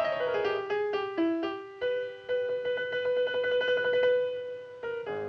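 Fast piano playing: a quick descending run of notes, then rapid repeated strikes on one held note.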